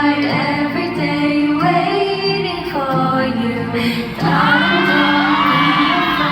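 Female voices singing a song over a backing track, with long held notes.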